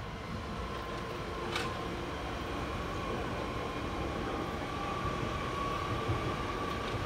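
Passenger train passing: a steady rumble that slowly grows louder, with a thin steady whine and one sharp click about one and a half seconds in.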